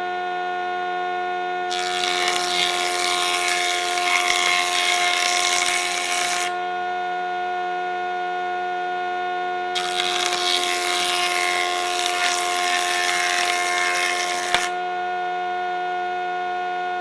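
Woodworking jointer running with a steady whine, as a board is fed across the cutter head twice, each pass about five seconds of loud cutting noise over the whine. The second pass ends with a short knock.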